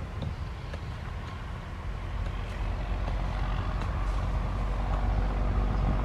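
A low engine rumble, like a motor vehicle running, that grows louder over a few seconds, with a few faint taps and scrapes from a tool digging in dry ground.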